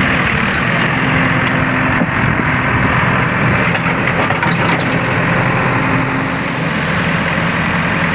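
Diesel engine of heavy earthmoving machinery running steadily at an even level.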